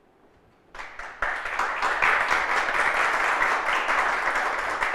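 Audience applauding: a few scattered claps about a second in, quickly swelling into steady applause.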